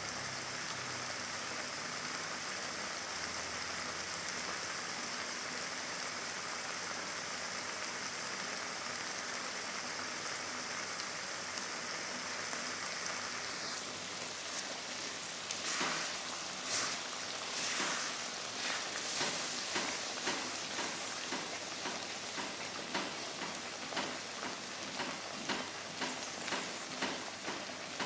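Sambal chilli paste frying in oil, sizzling steadily. About halfway through, the sizzle changes and a run of short strokes begins, more than once a second.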